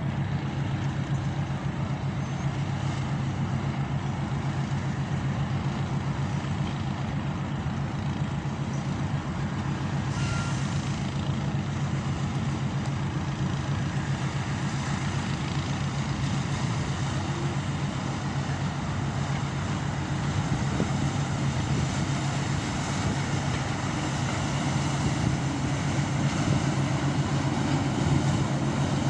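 Speedboat engine running steadily with an even low drone as the boat sets off, growing a little louder over the last several seconds.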